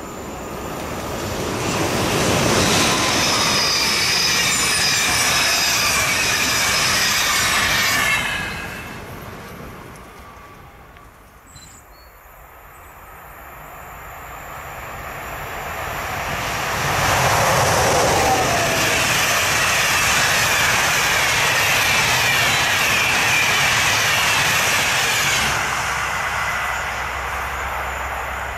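A PKP Intercity EU44 (Siemens Taurus ES64U4) electric locomotive hauling an EuroCity passenger train past at speed: a loud rush of wheels on rail with a repeatedly falling high whine. The sound cuts off suddenly about eight seconds in, then a second pass builds from about twelve seconds in, stays loud and drops off near the end.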